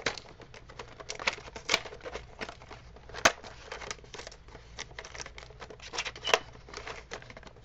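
A cardboard retail box being opened by hand: the flap and packaging crinkling and rustling, with irregular sharp clicks, the loudest about three seconds in.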